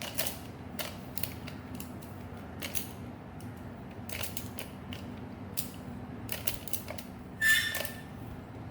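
Skewb puzzle cube being scrambled by hand: its plastic corners turning and snapping into place in a run of irregular clicks and clacks, with a louder click and squeak of plastic about a second before the end.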